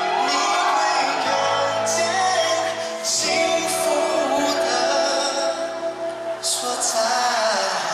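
Live pop band playing, with drums and keyboards, while singers sing a sustained melody. Short crash-like hits come a few times, strongest near the end.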